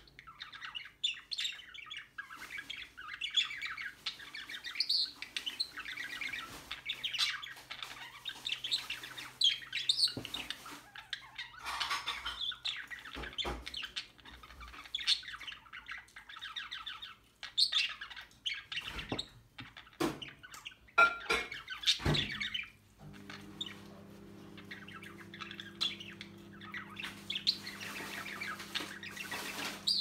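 Budgerigars chattering: a running stream of warbled chirps and short squawks, with a few sharp clicks. A steady low hum comes in about two-thirds of the way through.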